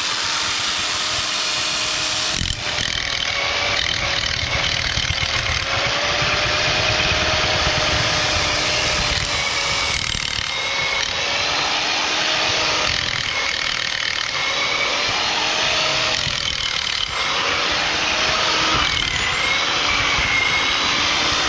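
Power drill turning a soil auger, boring a hole through the ground under concrete. It runs steadily with a high whine that sags a little in pitch now and then as the auger bites into the soil and gravel.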